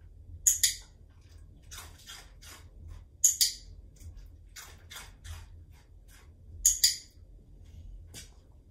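Three sharp double clicks, about three seconds apart, with fainter ticks and taps in between.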